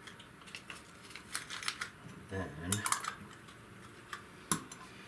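Light clicks and clatters of small hard parts being handled by hand, with a sharp click about four and a half seconds in and a brief murmur of a voice near the middle.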